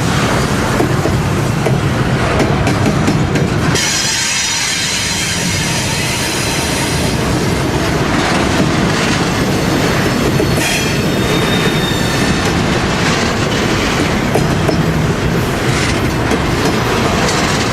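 Railroad cars rolling past, their steel wheels clattering on the rails, with a high-pitched wheel squeal from about four seconds in.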